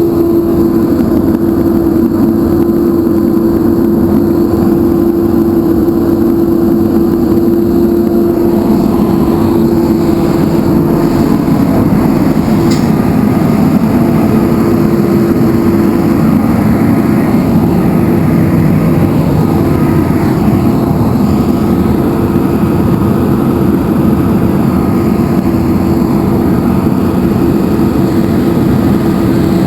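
Heavy diesel engine of a stormwater maintenance truck running steadily, a loud continuous drone with a held steady tone over it.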